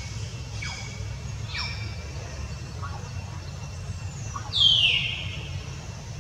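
Newborn kittens squeaking: several short, high, falling squeaks, with a louder, longer one about four and a half seconds in, over a steady low hum.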